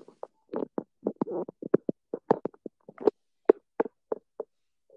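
A voice breaking up over a failing video-call connection: the audio chops into short clipped fragments, several a second, with dead gaps between them as it drops in and out.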